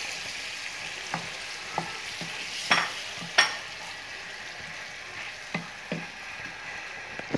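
Masala gravy sizzling in a non-stick frying pan as fried chicken pieces are stirred in with a wooden spatula. Several short clicks come from the spatula against the pan.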